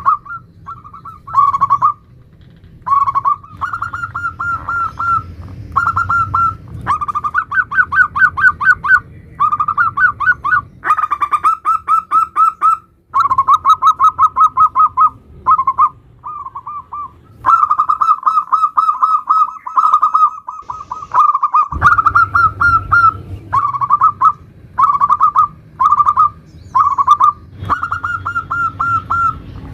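Zebra dove (perkutut) singing in the 'nutut' style: phrases of rapid, evenly repeated cooing notes, each phrase lasting a second or a few seconds, separated by short pauses.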